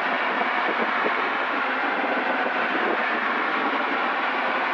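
Steady drone of a Zenith CH750 Cruzer light aircraft's engine and propeller in cruise, heard inside the cockpit. The level stays constant, with no change in power.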